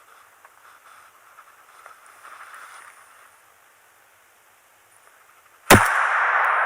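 A single shotgun shot loaded with buckshot, fired close by near the end, with a long echo rolling away after it. Before the shot there is only faint rustling.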